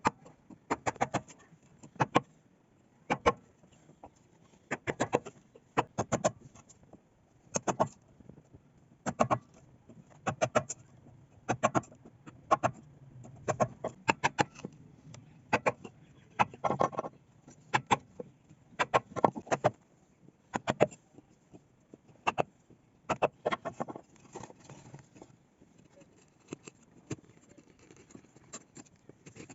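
Hand-tool blows on wood: sharp knocks in quick runs of two to five about once a second, fainter and sparser over the last few seconds.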